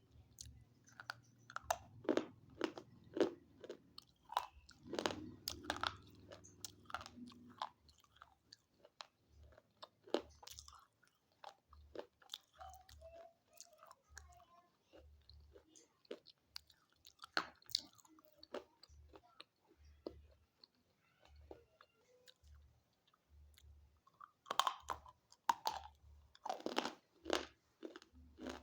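Close, crisp crunching as someone bites and chews hard chalky pieces, many quick cracks in a row. The crunches are dense at first, thin out to scattered chews for much of the stretch, then come thick again near the end.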